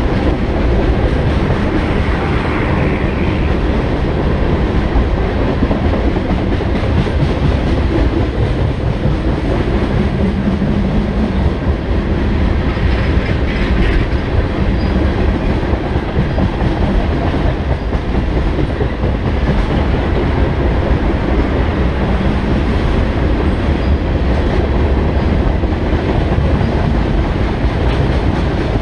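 Freight train of tank cars rolling past at a steady pace: a continuous, even noise of steel wheels running on the rails.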